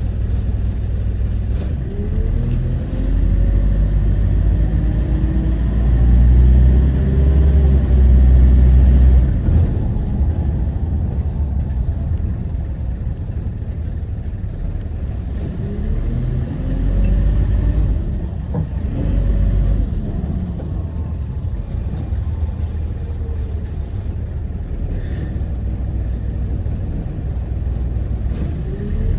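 Optare Solo Versa single-deck bus heard from on board: the diesel engine runs with a heavy rumble and twice accelerates hard, about two seconds in and again about fifteen seconds in, its pitch rising and then dropping back at each gear change.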